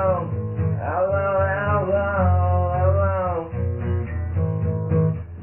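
Music: guitar with a melody line that glides in pitch, over a steady bass, with a muffled top end.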